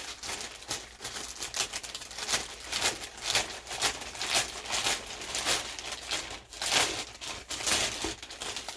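A pull-to-open package being opened by hand: its packaging rustles and crackles in a dense, irregular run of quick, sharp noises.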